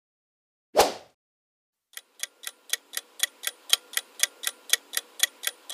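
A short, loud sound-effect hit about a second in, then a clock-style countdown timer ticking about four times a second, alternating louder and softer ticks, from about two seconds in.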